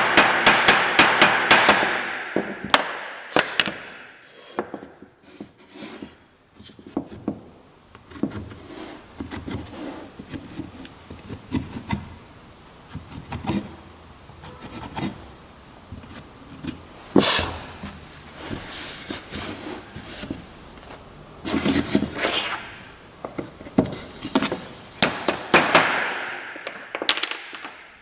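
Hand-tool work on white oak: irregular knocks and taps on wood, with a few short scraping strokes in between.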